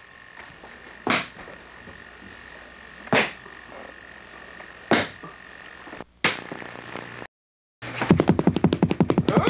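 Slow, heavy footsteps on a hard basement floor, three sharp steps about two seconds apart, over a faint steady hum. After a brief dropout to silence, a rapid rattle of about a dozen sharp knocks a second starts near the end.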